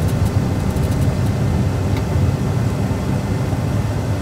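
Boeing 737 Classic full flight simulator reproducing engine noise at takeoff thrust during the takeoff roll and rotation: a loud, steady, low rumble.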